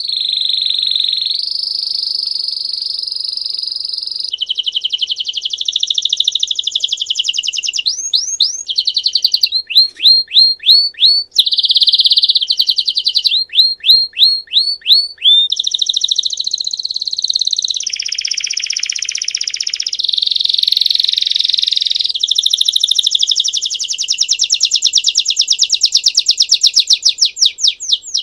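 Belgian-type domestic canary singing a long, unbroken song in the 'campainha' (bell) style. It runs through high trills, with runs of quick rising notes partway through and a fast, even trill near the end.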